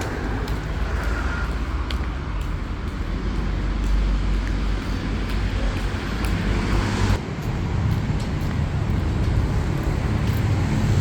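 Steady road traffic with a low rumble of passing vehicles; the sound changes abruptly about seven seconds in.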